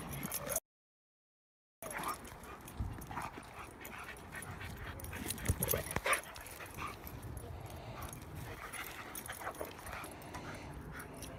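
A young German Shepherd and a Rottweiler play-fighting: scattered short dog vocal sounds and scuffling, loudest around the middle. The sound drops out completely for about a second near the start.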